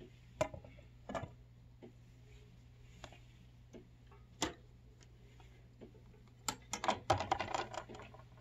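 Scattered light clicks and knocks as a vinyl LP is handled and set onto the spindle of a 1960 Garrard Model 209 record changer, ending in a quick run of clicks as the overarm is brought down onto the record. A steady low hum sits underneath.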